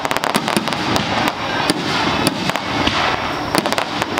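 Aerial fireworks in a finale barrage: many rapid, overlapping bangs and crackles over a continuous rumble, with no break.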